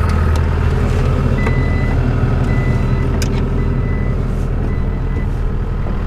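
Skid steer engine running steadily as the machine moves in, with a backup alarm beeping four times, about once a second, starting a second and a half in.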